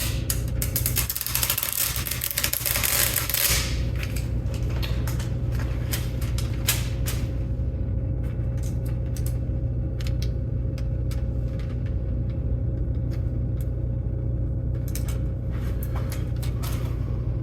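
A steady low electrical hum with a steady faint tone over it. A hissing rush lasts about three seconds near the start, then light clicks and clinks of small parts being handled follow at irregular intervals.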